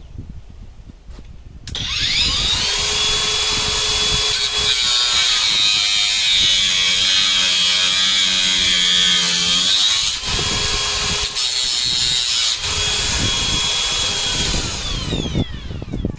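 AutoJare cordless angle grinder with a cutoff wheel spinning up with a rising whine about two seconds in and cutting through a thick bolt, then winding down with a falling whine near the end.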